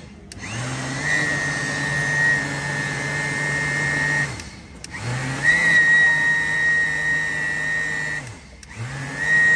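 Electric mixer grinder blending aloe vera, run in three spells: the motor spins up with a rising whine, runs steadily for about four seconds, stops, runs again for about three seconds, then starts a third time near the end, winding down after each run.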